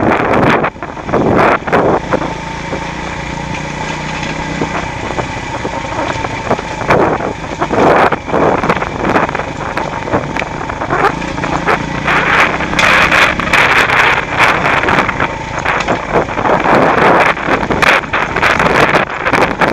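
Beta Alp 200 trail bike's single-cylinder four-stroke engine running on a rough stony track, with wind buffeting the microphone and many knocks and rattles as the bike jolts over the stones.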